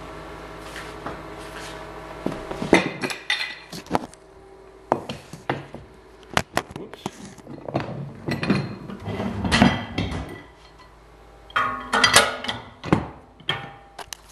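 Scattered metallic clinks, knocks and rattles of tools and fittings being handled. A steady hum cuts off about two and a half seconds in.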